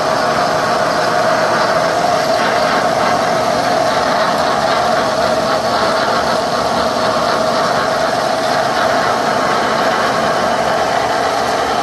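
Lathe running while a 1½-inch drill bit cuts into the workpiece, opening up a ¼-inch pilot hole: a steady machine noise with a constant mid-pitched whine.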